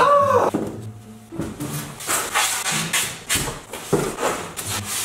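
Large corrugated cardboard boxes rubbing, scuffing and bumping against each other as they are lifted and stacked into a tower, in a series of short scrapes and rustles.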